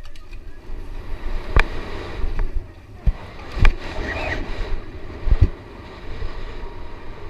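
A BMX bike racing down a dirt track: wind rushing over the microphone and tyres rumbling on the dirt, with several sharp knocks as the bike hits bumps and lands.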